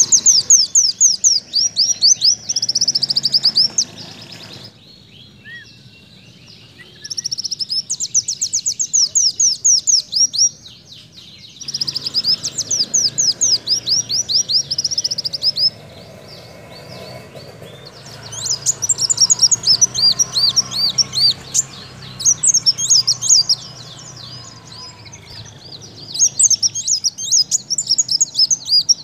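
Caged sunbird (kolibri daun) singing a canary-like song: about six bouts of fast, high, rapidly repeated trilled notes, each lasting a few seconds, with short pauses between them.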